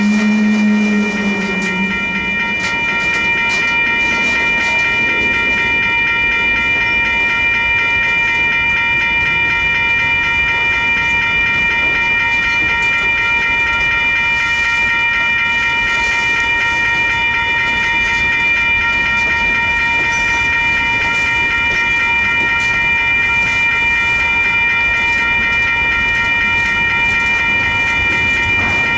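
Freight cars rolling past at a grade crossing, steel wheels clacking over the rail joints, while the crossing's warning bell rings steadily. A low drone stops about two seconds in.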